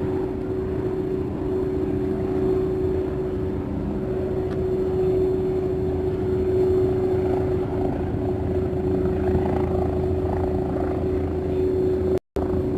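Steady engine drone with a constant hum, unbroken except for a split-second dropout near the end.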